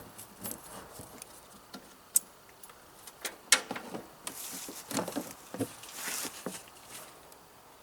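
Scattered clicks, knocks and rustles from hands working at the sawmill engine's gas tank while it is drained, with a sharp click about two seconds in and a cluster of knocks in the middle. It goes quiet near the end.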